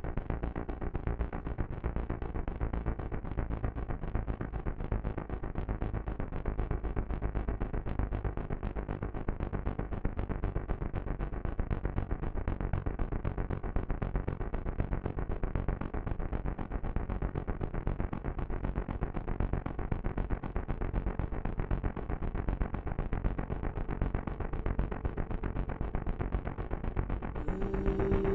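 Analogue synthesiser music from a Stylophone GEN X-1: a dense, rapidly pulsing, distorted texture over low held bass notes, filtered so that nothing bright sounds above it. Near the end, new held tones come in and the sound opens up brighter.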